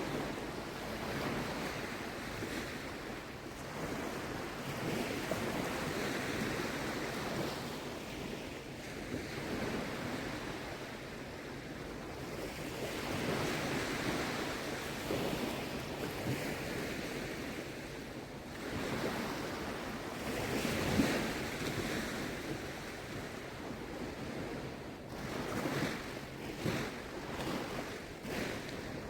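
Small waves washing in on the shore, with wind on the microphone. The wash swells and fades every few seconds, and a few short, sharper sounds come near the end.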